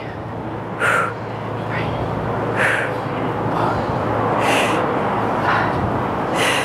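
A woman breathing hard through banded squat reps: a short, sharp, hissing exhale about every two seconds, four in all, with quieter breaths in between.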